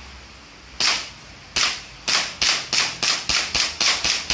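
Gas blowback airsoft Glock 17 pistol firing, about a dozen sharp cracks of the shot and slide cycling: two spaced shots, then quickening to about four a second.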